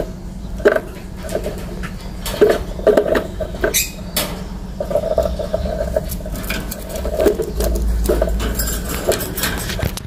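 Fischer's lovebirds chattering in short, squeaky calls, with a couple of sharp clicks about four seconds in, over a steady low hum.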